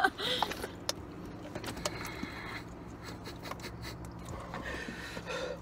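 Steady low hum inside a car, with a few faint clicks and rustles from handling a plastic water bottle.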